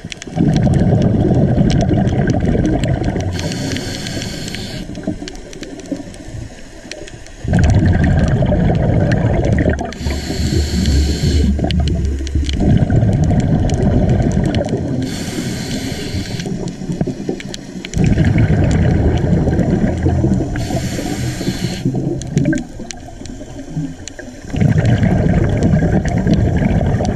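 A scuba diver breathing through a regulator. Short high hisses with each inhale, four of them about five to six seconds apart, alternate with long bubbling bursts of exhaled air.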